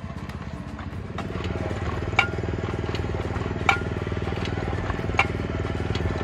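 Kubota walk-behind taro planter's small engine running steadily, a little louder about a second in, with a sharp metallic clack about every second and a half as the planting mechanism cycles.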